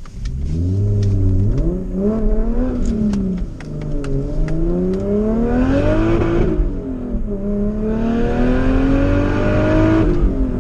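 Turbocharged Lexus IS300 straight-six accelerating hard, its pitch climbing and dropping back at each gear change, several times over; ripping.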